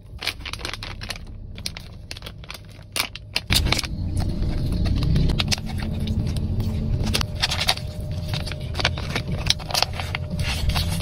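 Plastic snack packaging crinkling and crackling as it is handled and torn open, with irregular clicks throughout. A steady low rumble joins about three and a half seconds in.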